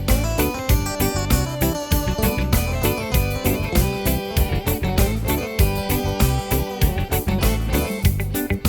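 Yamaha arranger keyboard playing back an accompaniment style: a steady drum beat under bass and piano/electric-piano keyboard parts.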